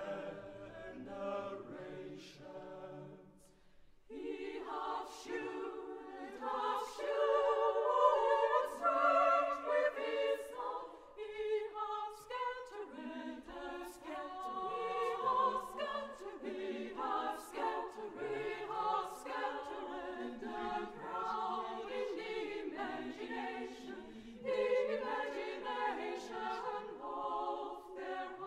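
Choir singing a carol in several voice parts, softly at first, then swelling louder from about four seconds in.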